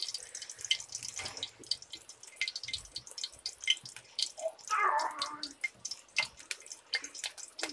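Tea water at a rolling boil in a steel pot: rapid, irregular bubbling and popping.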